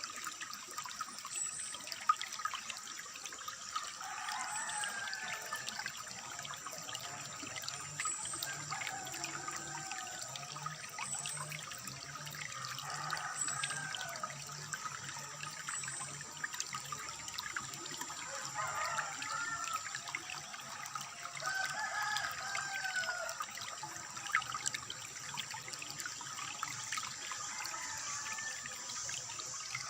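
Water trickling steadily, with a bird giving short, curving chirped calls every few seconds.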